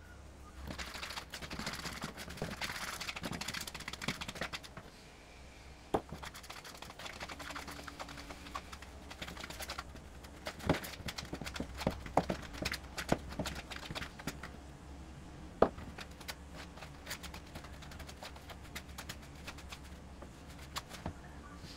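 Metal fork stirring flour, olive oil and water into a dough in a plastic bowl: a few seconds of steady scraping at first, then irregular clicks and taps of the fork against the bowl as the dough stiffens.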